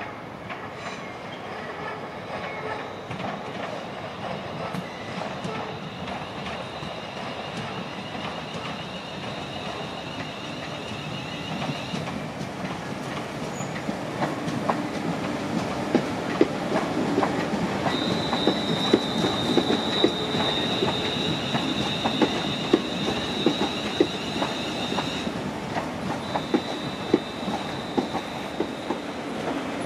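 London Northwestern electric multiple-unit trains running slowly through curving pointwork, with their wheels giving a high, steady squeal that comes and goes on the curves. From about halfway, irregular clicks and clacks over rail joints and crossings get louder as the train passes close.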